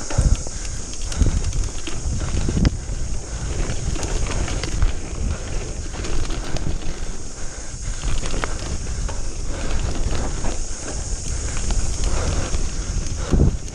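Mountain bike descending a dirt trail at race speed: tyres rumbling over dirt and the bike rattling and knocking over bumps, with wind rushing on the microphone. A few louder thuds land about a second in, at around three seconds and near the end.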